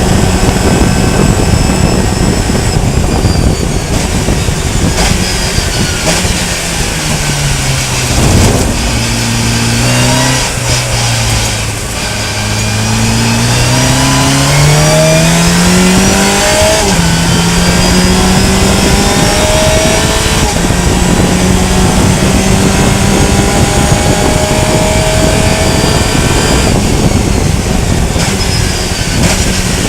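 Fun Cup race car's engine at racing revs. It drops in pitch under braking and downshifts about a third of the way in, then accelerates hard, with an upshift about halfway through, and holds high revs near the end.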